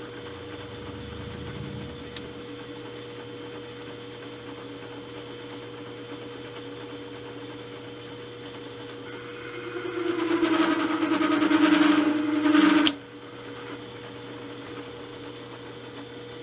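Milling machine spindle running with a boring head and indexable boring bar in the cut. About nine and a half seconds in, the bar chatters loudly for about three seconds with a harsh, pitched vibration, then stops suddenly. The chatter comes from a cut too deep for this boring head.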